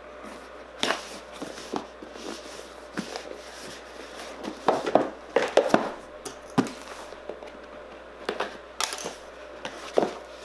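Cardboard packaging being handled: a printed sleeve slid off a stiff box and the box's lid lifted open, with a string of short scrapes, rustles and taps. The loudest cluster comes around the middle.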